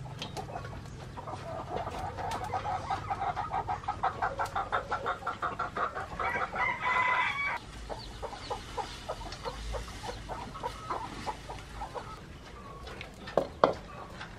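Chickens clucking in quick repeated calls, with a louder held call like a rooster's crow about six seconds in, then scattered softer clucks. Two sharp knocks come near the end.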